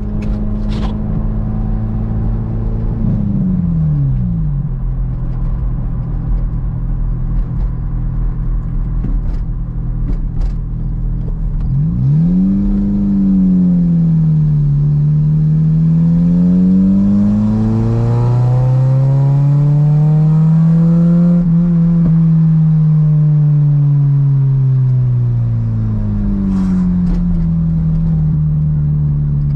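Car engine running under way. Its pitch drops about four seconds in, then rises and falls as the car speeds up and slows from about twelve seconds in, climbing highest past the middle before settling back down near the end.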